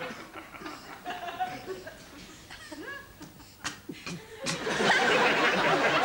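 Sitcom studio audience laughing: scattered chuckles at first, then the whole audience bursts into loud laughter about four and a half seconds in, just after two sharp clicks.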